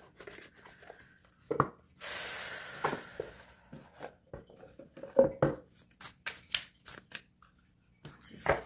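Tarot cards being shuffled and handled: a hissing rush of cards sliding together about two seconds in, with a run of sharp taps and clicks as the deck is squared and cards are handled.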